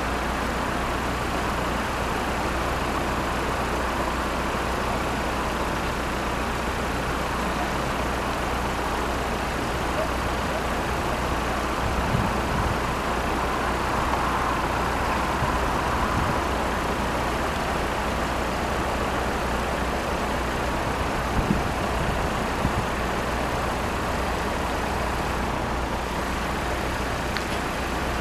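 Steady road-traffic noise with a constant low rumble and no distinct event.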